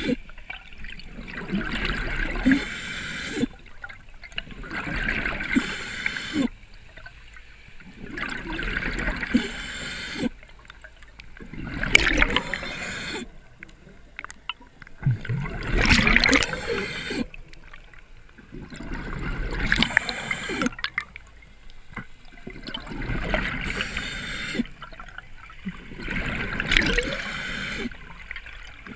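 Scuba diver breathing through a regulator underwater: a hiss on each inhale and a gurgling rush of exhaled bubbles, repeating in an even rhythm about every three and a half seconds.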